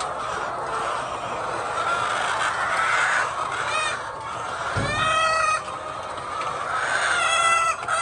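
A large flock of white laying hens clucking and chattering steadily, with two louder drawn-out calls standing out, one about five seconds in and another near the end.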